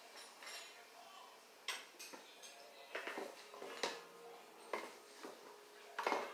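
A spatula scraping and knocking against a metal mixing bowl: about half a dozen separate clacks and scrapes, spaced a second or so apart, with quiet between.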